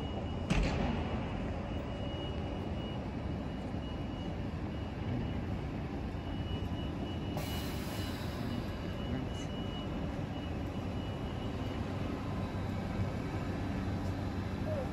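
Steady low hum and rumble of a standing Stadler KISS (ESh2) double-deck electric train's on-board equipment, with a faint high whine that comes and goes. A sharp knock comes about half a second in, and a short hiss about seven seconds in.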